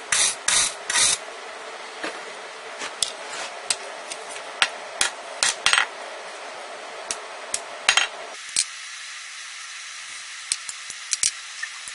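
Hand hammer striking red-hot rebar on a steel anvil while a hook's scroll is forged: a quick run of solid blows in the first second, then scattered lighter taps and clicks. A steady background hiss thins out about eight seconds in.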